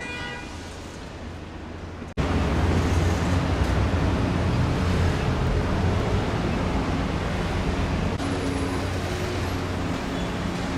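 Steady road traffic noise with a low rumble; it jumps abruptly louder about two seconds in and stays there.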